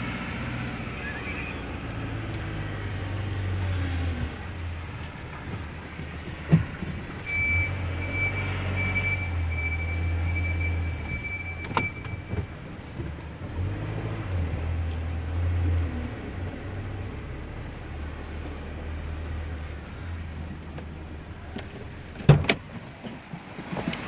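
Road traffic: cars passing at low speed, their engine rumble swelling and fading several times. A thin high whine holds for about five seconds in the middle, with a few sharp knocks and a loud thump near the end.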